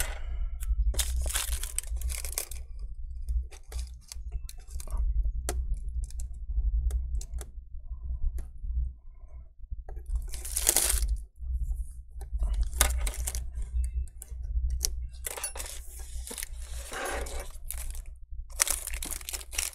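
Thin double-sided adhesive tape being pulled, torn and handled off its roll, with crinkling of its plastic liner, coming in several short noisy spells with small clicks between. A steady low hum runs underneath.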